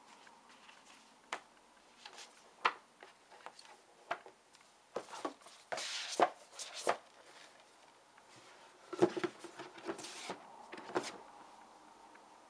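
Hardcover book and cardboard box set being handled: scattered light taps and knocks, a scraping rustle of card sliding against card about halfway through as the book goes into the box, then a cluster of soft knocks and another short rustle as the box is closed and set down.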